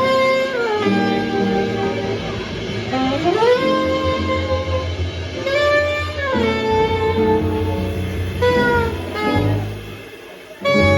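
Live jazz quartet: a saxophone plays a melody full of pitch slides up and down over piano, bass and drums. The band drops back briefly about ten seconds in, then comes back in.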